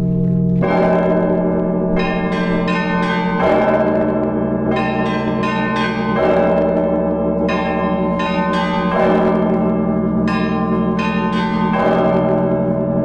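Russian Orthodox belfry bells ringing in a repeating pattern. A heavy bell is struck about every three seconds over a steady low hum, with quick runs of smaller, higher bells in between.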